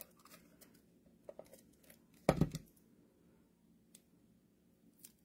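Quiet paper-crafting handling sounds: a handheld adhesive tape runner being pressed and drawn over small die-cut paper letters, giving faint clicks and scrapes. A little past two seconds in there is one louder, brief scrape.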